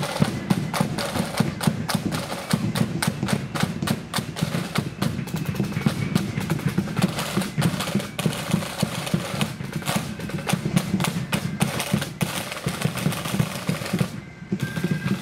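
Marching band's snare drums playing a fast street beat with rolls and dense rapid strokes, with no flute tune over it. The drumming drops away briefly near the end.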